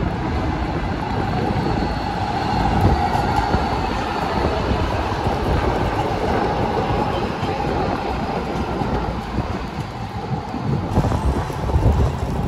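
Low-floor articulated tram passing close by on street track: a steady rumble of steel wheels on rail with a whine running through it. Near the end it gives way to another tram running on street track.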